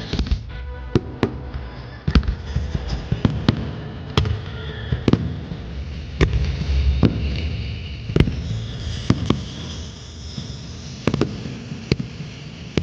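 Fireworks display: a string of sharp firework bangs at irregular intervals, about one or two a second, over a low rumble.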